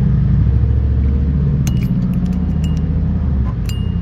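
Steady low hum of a running engine. In the second half come several sharp metal clinks of wrenches and parts, two of them ringing briefly, as work goes on at a car's air-conditioning compressor belt and pulley.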